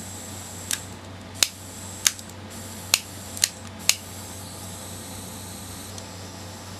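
Six sharp clicks and taps from small hand tools being handled and set down on the bench, over a steady low electrical hum. The clicks are irregular and fall in the first four seconds.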